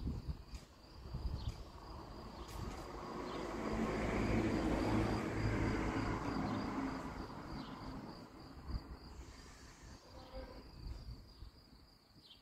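Crickets chirring steadily, a thin high-pitched pulsing line of sound. A low rushing sound swells and fades again over several seconds in the middle and is the loudest thing heard.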